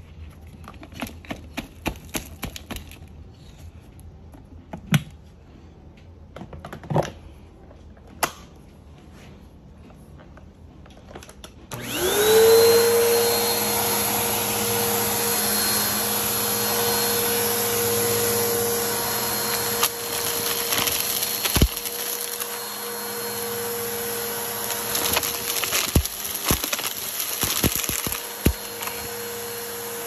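Scattered clicks and crackles, then about twelve seconds in a Bissell vacuum cleaner switches on, its motor quickly rising to a steady high whine. Crackling and clicking over the motor as lint and small crunchy debris are sucked up from the carpet.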